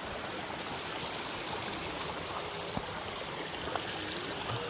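Stream running steadily, a constant rush of flowing water, with a couple of faint knocks partway through.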